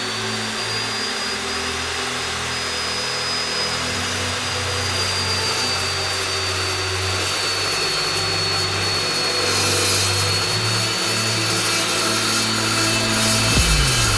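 Evolution S355CPSL 14-inch carbide-tipped metal-cutting chop saw running with a steady high motor whine while its blade cuts through thick-walled steel pipe, the cutting noise growing slightly louder as the cut goes on.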